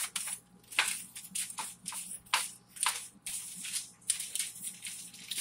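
Crinkling and rustling of aluminium foil and a small seasoning packet, in short irregular crackles several times a second, as sazon is shaken over chicken.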